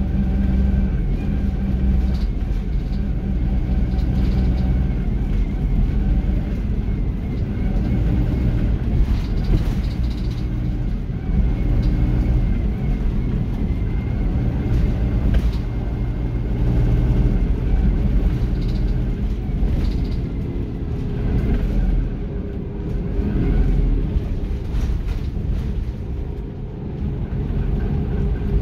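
ADL Dart SLF single-decker bus's diesel engine running under way, heard from inside the passenger saloon; its note shifts up and down as the bus drives, with short interior rattles.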